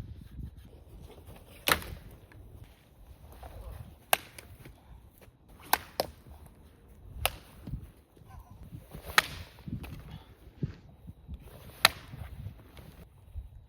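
Dry sticks snapping with sharp cracks, about seven at irregular intervals, over quieter rustling and crunching in woodland litter.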